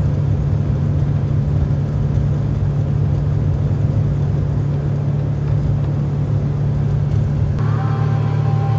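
Outboard motor of an aluminum riverboat running steadily under way, a constant low drone with wind and water noise over it. About three-quarters of the way through the sound shifts, the deepest rumble thinning and a steady higher whine joining the drone.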